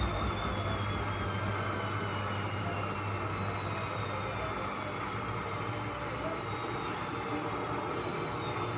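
Indesit washing machine's drum motor whining as the drum turns, the whine gliding slowly and steadily down in pitch as the drum slows, over a steady low hum.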